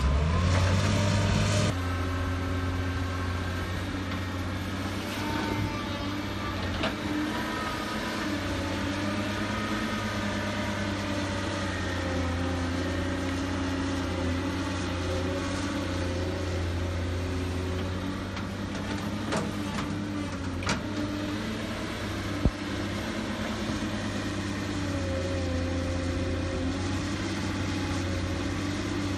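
Diesel engine of a Cat 320 hydraulic excavator running steadily, its note wavering slightly as it works, with a few sharp knocks in the second half.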